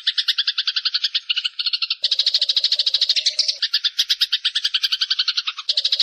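Songbird calls from a looped bird-mastering recording: rapid rattling trills at about ten pulses a second, several layers overlapping. The mix changes about two seconds in, as a lower, denser layer joins.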